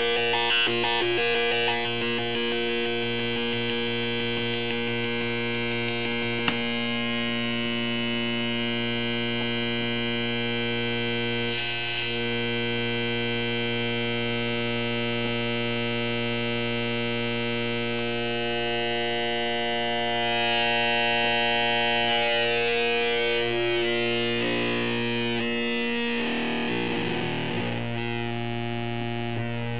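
A homemade 4093-chip oscillator's buzzy square-like tone runs through a simple TL071 op-amp voltage-controlled filter and holds one steady pitch. Turning the filter's cutoff and resonance knobs changes its tone, most clearly in a sweep of the upper overtones in the last third.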